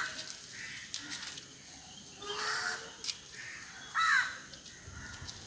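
A crow cawing, with short harsh calls about two and a half and four seconds in, over a faint steady high whine.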